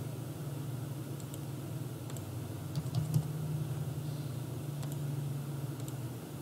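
Scattered computer keyboard key presses and mouse clicks, a handful of sharp ticks, over a steady low hum.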